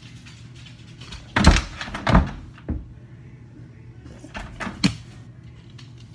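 A dog's paws thumping and knocking on a wooden door next to the microphone: two loud thumps about a second and a half and two seconds in, a softer one just after, then a few sharper knocks and nail clicks near five seconds.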